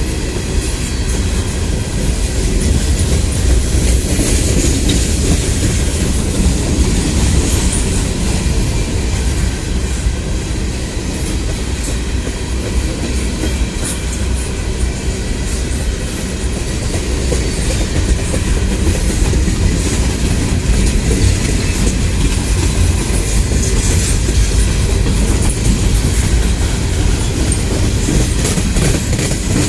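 A train rolling past, with a steady, loud rumble of its wheels on the rails and no break or change.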